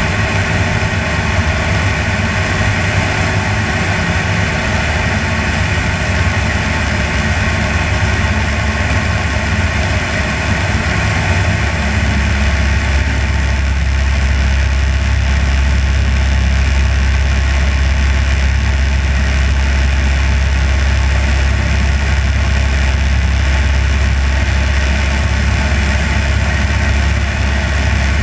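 Light propeller aircraft's engine and propeller droning steadily in cruise flight, with a rushing airflow noise over it. About twelve seconds in, the low engine note shifts and grows slightly louder and steadier.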